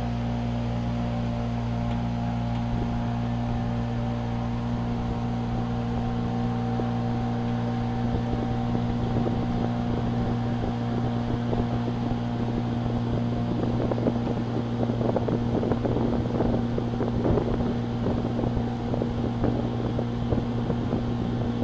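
Small motorboat's engine running steadily under way, a constant low drone. From about a third of the way in, wind buffets the microphone, growing gustier toward the end.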